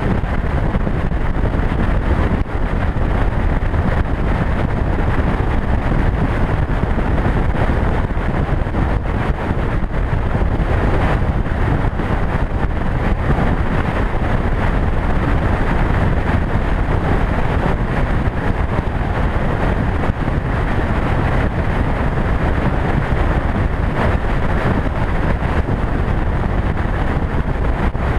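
Steady wind rush on a motorcycle's camera microphone at expressway cruising speed, mixed with engine and tyre noise, with no change in speed or load.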